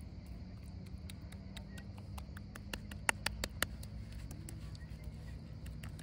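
Small wet clicks and smacks of hands rubbing a spice coating into a butterflied raw fish on a wooden board, with a quick run of sharper clicks about halfway through. A steady low rumble lies underneath.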